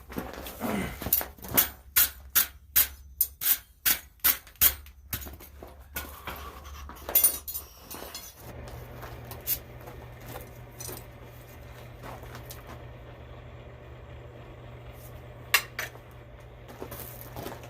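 Blacksmith's hammer striking steel on an anvil in a steady run of sharp metallic blows, about two and a half a second, for roughly the first five seconds, then a few single strikes. A steady low hum comes in about halfway through.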